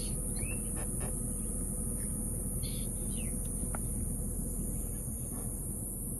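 Scattered short bird chirps and squeaks over a steady low rumble and a steady high-pitched hiss.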